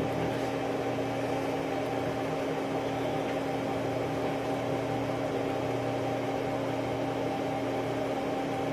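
A steady machine hum with several constant tones over a soft hiss, unchanging throughout.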